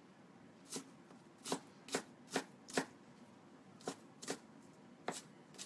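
Kitchen knife chopping onion on a wooden cutting board, about nine sharp chops at an uneven pace with a short pause around the middle.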